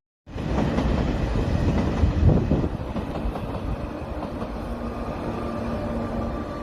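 A steady, noisy mechanical rumble with rattling, like a vehicle running, that starts abruptly after a brief cut to silence.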